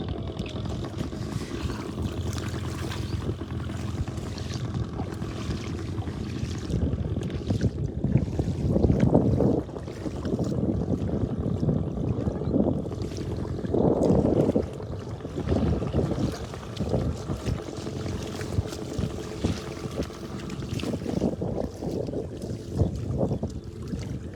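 Wind buffeting the microphone outdoors by water, a steady low rumble with stronger gusts about eight and fourteen seconds in.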